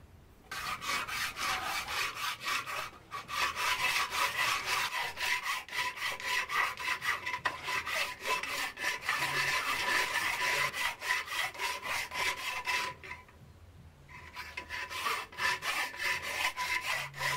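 Hand file worked back and forth over cast aluminium in rapid strokes, with a steady ringing note from the metal under the rasping. It pauses for about a second near the end, then starts again.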